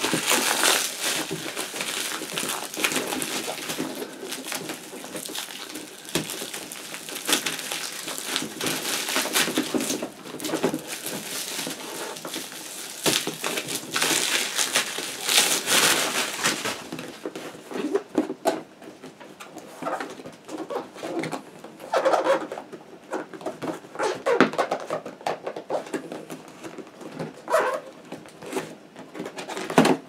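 Black plastic wrapping crinkling and rustling steadily as it is pulled and torn off a cardboard box. After about the middle this gives way to sparser rustles and knocks as the cardboard box is handled and its flap opened.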